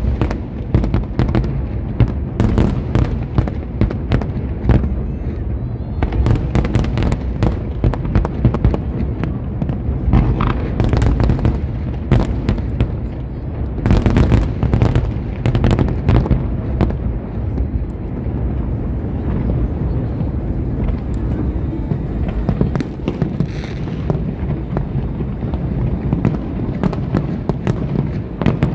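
Aerial fireworks display going off in a dense, continuous barrage of sharp cracks and crackles over heavy low booms from the bursting shells.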